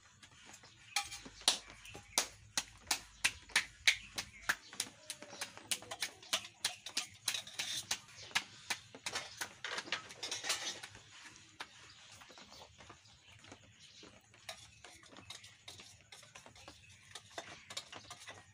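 Roti dough being patted flat between bare palms: quick, regular slaps of about three a second, which thin out and soften after about ten seconds.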